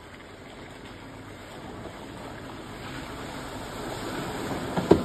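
Pickup truck churning through a water-filled mud hole: a steady wash of splashing water that grows louder, then a sharp knock from the truck near the end that didn't sound good.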